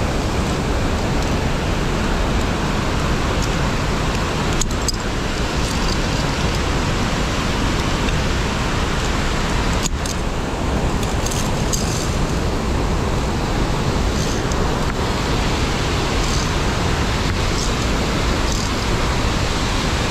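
Steady, loud rush of water from a gorge stream or waterfall, with a few faint clicks about five and eleven seconds in.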